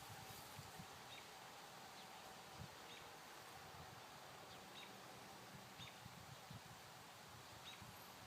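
Near silence: faint outdoor ambience with a few short, high chirps, roughly one every second or so.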